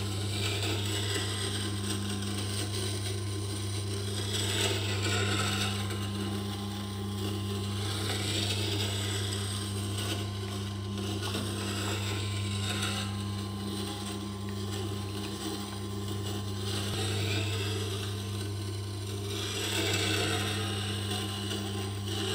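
Tormek water-cooled sharpening machine running with a steady low motor hum while a spindle roughing gouge in a jig is ground on its turning grindstone. The hiss of steel on stone swells and fades every few seconds as the gouge is rolled from one wing around the tip to the other.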